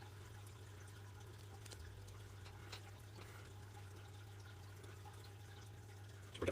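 Faint room tone with a steady low hum and a few light, scattered clicks.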